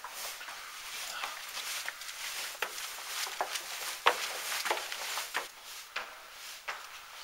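Irregular scuffs, knocks and rustles of people moving about and handling gear close to a handheld camera, with one sharper knock about four seconds in.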